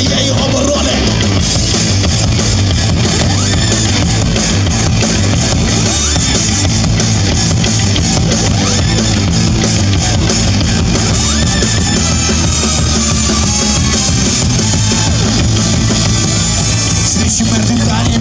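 Live rock band playing loud and steady: electric guitar, bass guitar and drum kit through the stage sound system.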